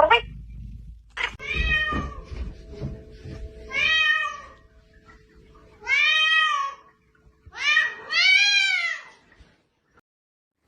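A domestic cat meowing repeatedly: about five drawn-out meows, each rising and then falling in pitch, the last two coming close together.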